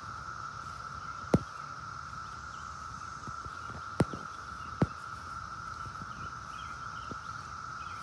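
Chorus of cicadas giving a steady, unbroken drone at a single pitch. Three sharp knocks cut through it, one about a second in and two close together near the middle.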